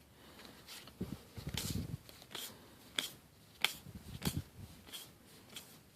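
Trading cards being handled and flipped through: a few soft, sharp card clicks spaced a second or so apart, with faint low rustling between.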